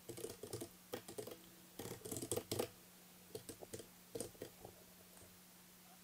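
Faint computer keyboard typing: a command being keyed in, in uneven bursts of clicks, stopping a little before five seconds in.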